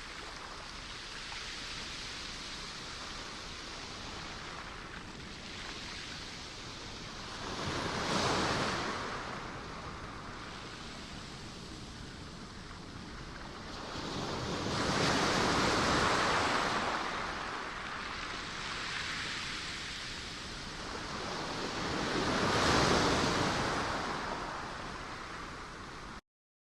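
Ocean surf: three waves swell up and break about seven seconds apart over a steady wash, and the sound cuts off suddenly near the end.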